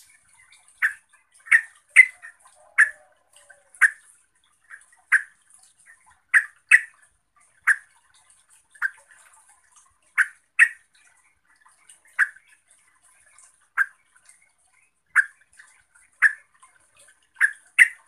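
Yellow-vented bulbul (trucuk) giving short, sharp call notes, one about every second at an irregular pace.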